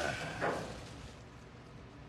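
Steady low hum of ship engine-room machinery, with a short burst of clatter or noise in the first half-second.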